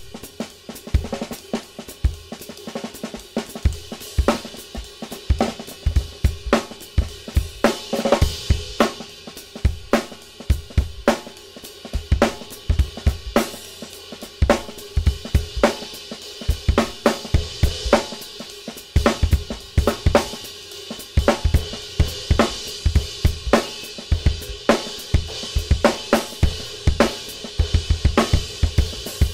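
Drum kit played in a continuous groove: bass drum, snare and hi-hat under a new Sabian HHX cymbal played as a ride, its high wash ringing over the beat.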